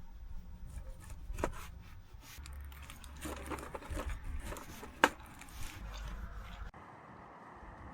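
Small objects being handled at close range: rustling and scraping with two sharp clicks, about a second and a half in and about five seconds in. Near the end the sound cuts abruptly to a steady rushing noise.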